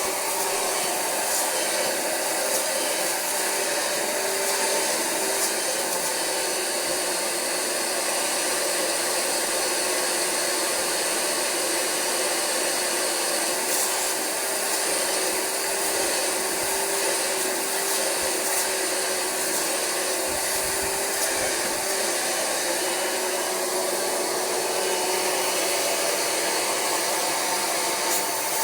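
Rug Doctor carpet cleaner running steadily, its vacuum motor drawing water back through the upholstery hand tool as the fabric is extracted.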